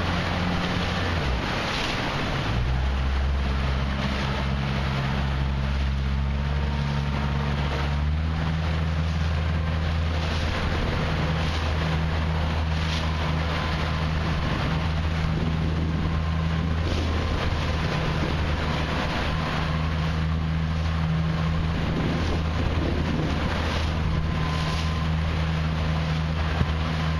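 Outboard motor of a rigid-inflatable coach boat running at steady speed, its low hum shifting in pitch about two and a half and eight seconds in. Wind buffets the microphone and water rushes along the hull.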